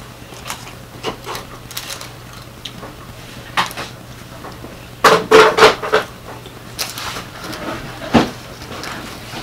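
Close-miked eating sounds: a person biting and chewing chicken wings and cheese fries, with scattered clicks and rustles as her hand picks through the paper-lined trays. The loudest run of sounds comes about five seconds in.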